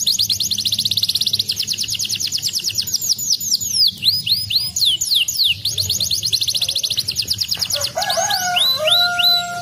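Domestic canary singing: fast rolling trills of rapidly repeated downward-sweeping notes, alternating with slower, separate sweeps. Near the end, lower, steadier whistled notes join in.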